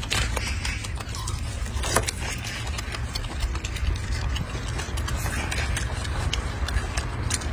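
Golden snub-nosed monkey chewing crisp fruit: irregular sharp crunching clicks over a steady low rumble.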